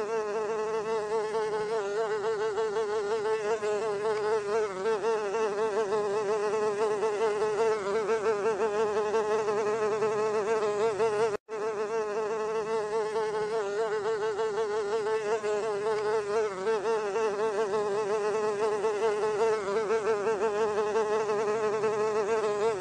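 Housefly buzzing in flight: a steady, slightly wavering drone that cuts out for an instant about eleven seconds in.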